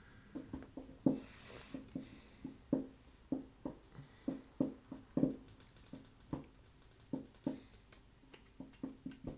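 Soft plucked-string music, likely guitar, with single notes picked two or three times a second, each fading quickly. A brief rustle about a second and a half in.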